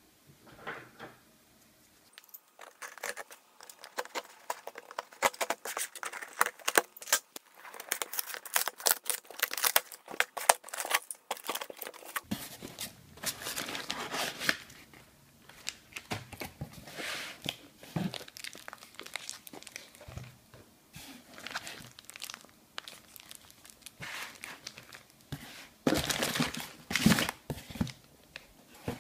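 A cardboard shipping box being torn open and its crumpled newspaper packing rustled and pulled out: a long run of tearing and crinkling paper noises, loudest near the end.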